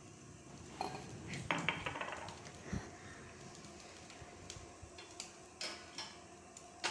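Faint scattered clinks and knocks of kitchen utensils and cookware, with a short scraping rustle about a second and a half in.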